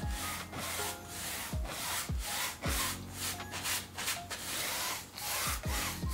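Wide bristle paintbrush scrubbing thick titanium-white acrylic paint across a stretched canvas, in repeated back-and-forth strokes about twice a second.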